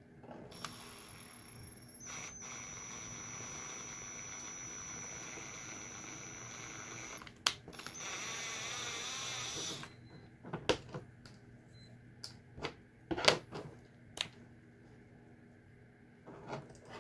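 Cordless drill with a twist bit boring out the screw holes of a plastic 40 mm fan frame. The drill runs as a steady whine for several seconds, stops briefly with a click, then runs again for about two seconds. After that come a series of sharp clicks and knocks as the fan and drill are handled.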